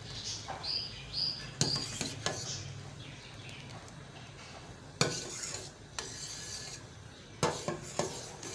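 Stainless-steel slotted spoon stirring milk thickened with cornflour in a steel pot, scraping around the pot with about seven sharp clinks against the metal. A few short high squeaks come in the first two seconds.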